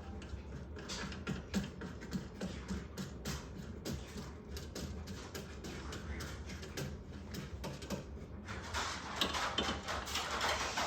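Irregular small clicks, taps and rustling as parts of the printer's tray are handled and fitted, growing into denser, louder rustling near the end.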